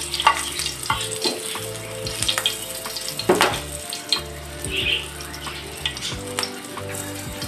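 Whole green chillies, their tips slit, sizzling in hot ghee and mustard oil in a kadai, with scattered crackling pops, one louder a little over three seconds in. A spatula briefly turns them at the start.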